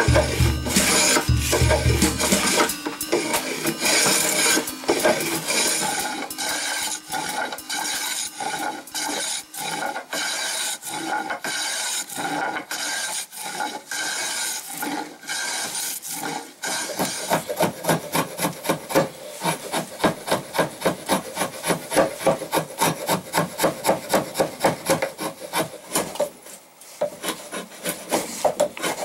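Hand tools shaping a scrap oak handle: irregular scraping strokes of a hand plane shaving the wood, then from a little past halfway, quick, even rasping strokes, about two or three a second.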